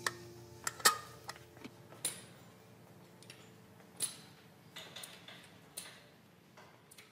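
Metal clinks of a stainless-steel tiffin box being handled and closed, the loudest ringing briefly about a second in. Later come sparse, light taps of a walking stick and footsteps on a tiled floor.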